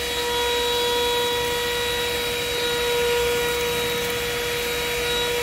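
Woscher 578 12-volt handheld car vacuum cleaner running steadily: a high, even motor whine over a rush of air as the hose nozzle sucks dust and grit from a car floor mat.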